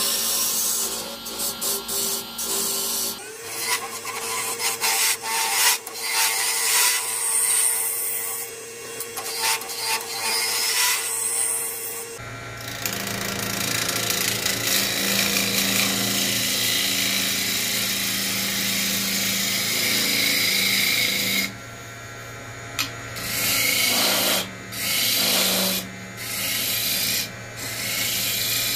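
A gouge cutting into the end grain of a spinning cherry-wood goblet blank on a wood lathe, hollowing out the cup: a rough scraping hiss of the cut over the steady hum of the lathe. The cutting stops and starts several times near the end.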